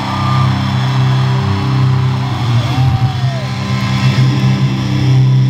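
Live rock band in an arena, a sustained low guitar and bass drone ringing over crowd noise, heavily distorted by the phone's microphone.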